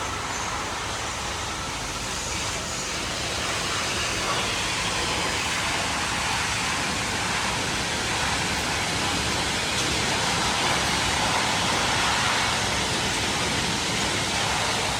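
Abrasive sandblasting on the old steel elevated structure: a loud, steady hiss that swells slightly in the middle.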